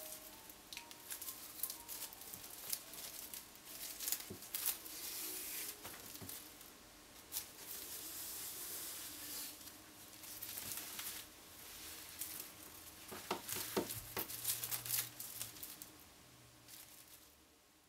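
Crocheted plastic-bag yarn (plarn) crinkling and rustling as hands handle and open a small purse: an irregular run of soft crackles and clicks.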